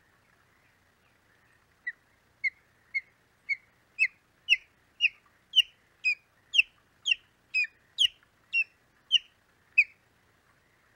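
Osprey calling: a series of about sixteen sharp, whistled notes, each sliding down in pitch, about two a second, growing louder after the first few.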